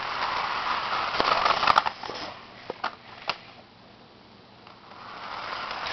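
HO scale model train running along sectional track: a steady hiss of motor and wheels, with a few sharp clicks. It drops away about two seconds in and builds again near the end.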